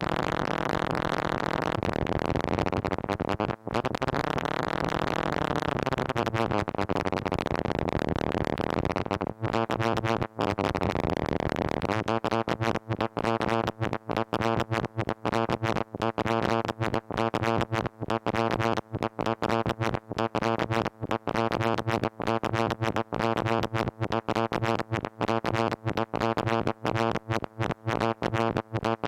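Moog Mother-32 analog synthesizer, its tone modulated by chaotic Lorenz-equation signals from an analog computer. A buzzy, many-pitched drone wanders and glides in pitch, then about twelve seconds in turns into a rapid, irregular stuttering pulse.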